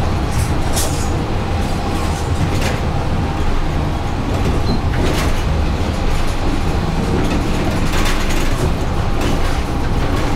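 Inside a moving electric trolleybus: a steady low rumble with tyre noise from a wet road and a few scattered clicks and rattles from the body and fittings.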